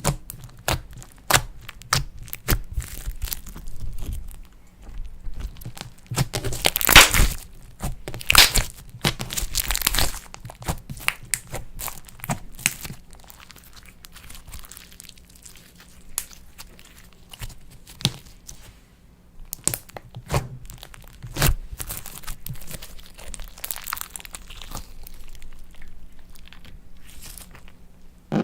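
Clay slime being kneaded and stretched by hand, with irregular sticky crackling and popping clicks that are densest and loudest for a few seconds about a quarter of the way through, then thinner.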